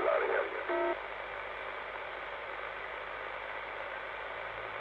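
CB radio receiver giving a steady hiss of open static between transmissions, after a brief clipped blip of voice just under a second in.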